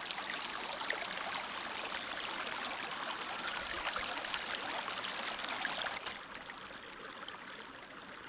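Small stream murmuring steadily, an even rush of flowing water flecked with fine splashes, a little quieter for the last couple of seconds.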